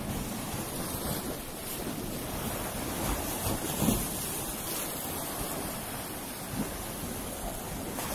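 Sea waves washing and breaking against a concrete sea wall, with foam and spray churning, and wind buffeting the microphone. A louder splash comes about four seconds in.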